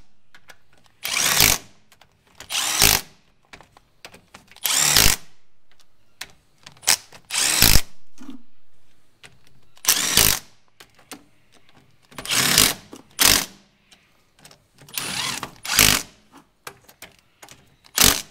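Cordless impact driver (rattle gun) hammering the bolts of a quick-change diff's rear cover tight, in about a dozen short bursts a second or two apart.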